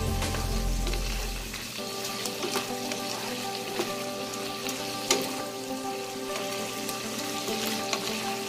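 Meat pieces sizzling and bubbling as they cook down in their own juices in a wide pan, with a wooden spoon stirring and knocking against the pan a few times; the sharpest knock comes about five seconds in. Soft background music with held notes runs underneath.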